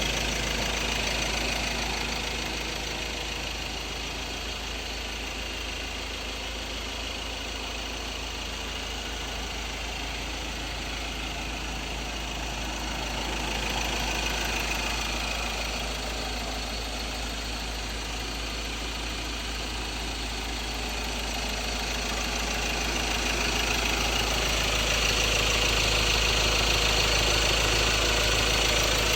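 2016 Ford Ranger's 2.2 Duratorq four-cylinder turbodiesel running with a knocking rattle, growing louder near the end. The owner takes the rattle for fuel knock from a possible injector problem.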